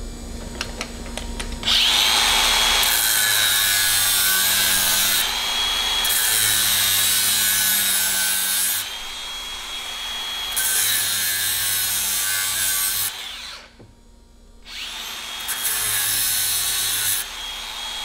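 Angle grinder with a cut-off wheel cutting into the steel crimp ferrule of a hydraulic hose fitting, to relieve the crimp so the fitting can be pried off. It starts about two seconds in and runs in several passes, a steady high whine with the grinding growing louder and softer as the wheel bites and eases, and stops for about a second before starting again.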